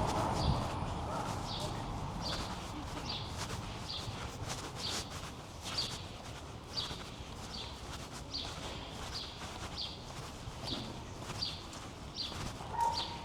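Footsteps of a person walking at a steady pace, a little under two steps a second, over a faint steady outdoor background. A louder rushing noise fades out in the first second.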